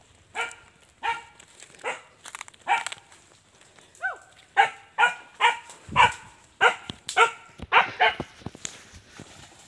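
Hunting dog barking repeatedly, about one bark a second at first, then faster, about two a second, from about halfway in, with a brief falling whine about four seconds in.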